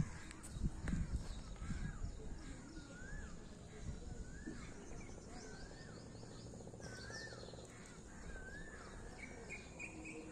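A bird calling over and over, a short rising-and-falling note about once a second, with fainter high chirps from other birds. Low wind rumble on the microphone is heaviest in the first second.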